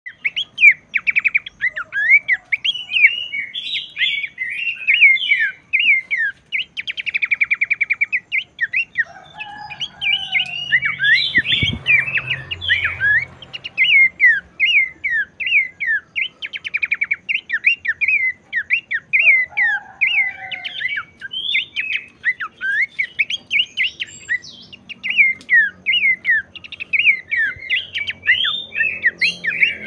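Pelanduk semak babbler singing without pause: a fast stream of sharp chirps and whistled notes mixed with rapid rattling trills, with a few lower notes now and then. A single sharp knock comes a little before halfway.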